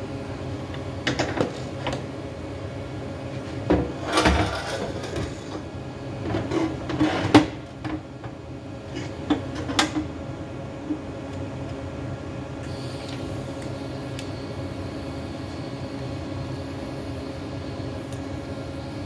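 Knocks and clatters of metal parts and tools being handled on a workbench, the loudest about seven seconds in, over a steady shop hum. The knocking stops about halfway, and a faint high hiss comes in over the hum.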